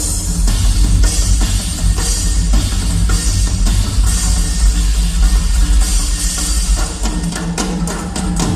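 Rock-style music with a heavy drum kit and bass drum, and guitar.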